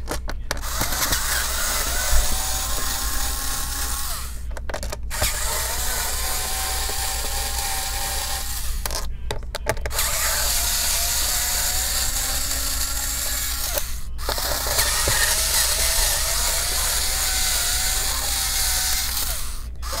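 Electric screwdriver whirring as it unscrews Phillips screws from a laptop's back cover. It runs in stretches of about four to five seconds with a brief stop between each, its tone wavering slightly as each screw turns out.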